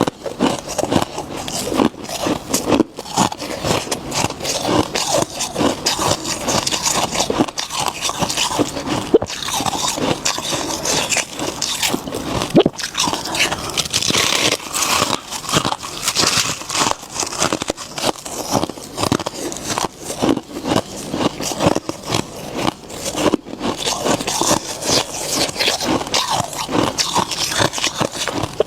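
Freezer frost being bitten and chewed: a dense, continuous run of crisp, crackly crunches.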